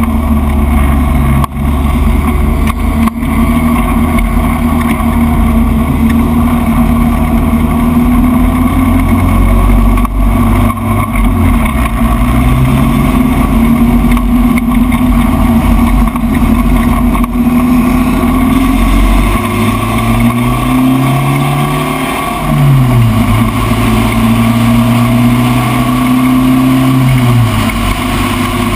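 Spec Racer Ford race car engine running loud and steady under throttle. The pitch shifts a few times, climbs over a couple of seconds about two-thirds of the way through, then drops sharply at a gear change and holds level.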